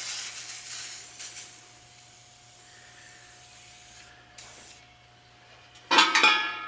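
Aerosol can spraying rust preventive onto freshly cleaned bare metal parts, in hissing bursts: a longer one at the start and a short one past the middle. Near the end, a loud metallic clank that rings on.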